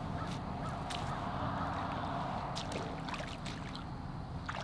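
Footsteps on lakeshore gravel and wading into shallow water, with a few short scrapes and light sloshes as a tripod is carried in.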